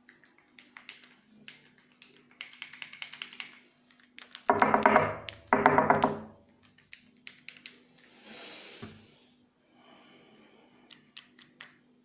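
Clicks and taps of small metal parts and tools being handled while an ignition lock is worked on, with two loud pitched mechanical bursts of about a second each in the middle and a short hiss near the end.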